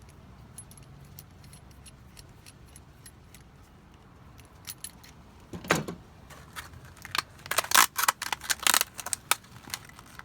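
Small hard parts being handled: faint scattered ticks, then from about halfway a run of sharp clicks and rattles, loudest in the last few seconds.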